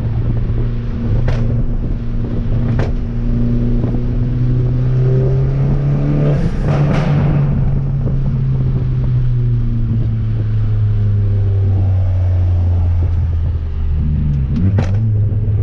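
Fiat 500 Abarth's turbocharged four-cylinder engine pulling steadily while the car is driven with the windows down. The engine note rises slowly, swells with a rush of noise about halfway, then eases off and falls. A few sharp clicks are heard along the way.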